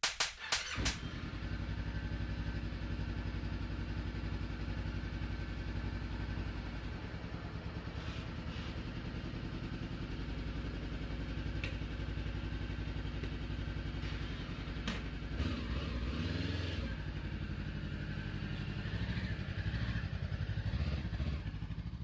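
Motorcycle engine running steadily at idle, with a slight change in its note about fifteen seconds in and a little louder near the end.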